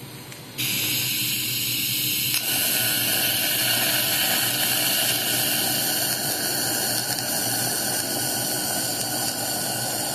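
DC lift-TIG welding arc, torch on electrode negative, hissing steadily. The hiss gets suddenly louder about half a second in and fuller again at about two and a half seconds, then holds even.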